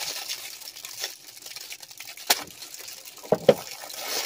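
Tissue paper wrapping crinkling and rustling as it is handled. A folding multi-tool makes sharp snips as it cuts the wrap open: one a little over two seconds in, and two more close together about a second later.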